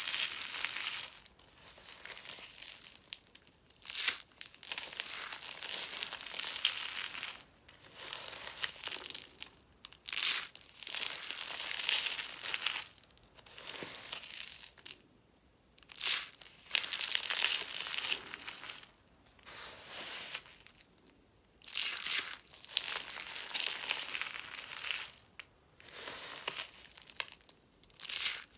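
Dry soap being crushed, crunching and crackling in bursts of a second or two with short pauses between, and now and then a sharp snap as a piece breaks.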